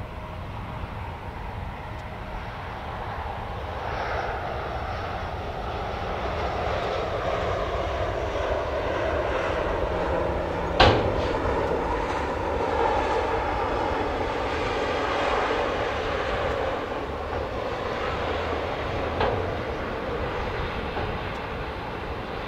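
Jet aircraft engines swelling to a loud, steady rumble and easing again, over the low running of the dump truck's diesel. About halfway through comes a single sharp bang, with a smaller knock near the end, from the dump truck tipping out its load of rock and concrete rubble.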